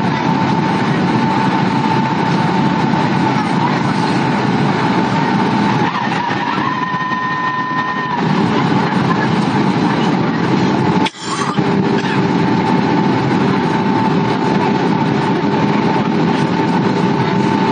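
Airliner cabin noise on the descent to land: the steady rush of engines and airflow with a thin whine running through it. About 11 s in the sound cuts out for a moment, then goes on with a lower steady hum added.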